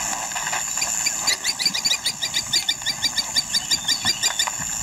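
A bird calling in a fast, even run of short chirps, about five or six a second, over a steady high-pitched insect drone.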